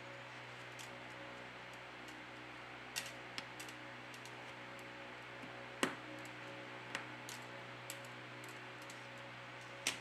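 Scattered sharp clicks and light taps of fingers pressing the main flex cable and its connectors into place inside an opened Samsung Galaxy A21s smartphone. There are about seven, the loudest about six seconds in, over a steady background hum.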